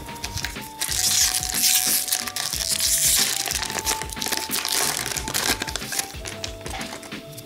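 A hockey card pack's wrapper being torn open and crinkled, and the cards slid out, with the crinkling loudest from about one to three and a half seconds in. Background music with a melody plays throughout.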